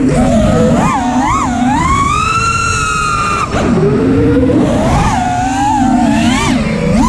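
Small drone's electric motors whining, the pitch swinging up and down with the throttle: it climbs and holds high about two seconds in, falls away sharply halfway through, then wavers in quick dips. A steady rumble of wind and propeller wash runs underneath.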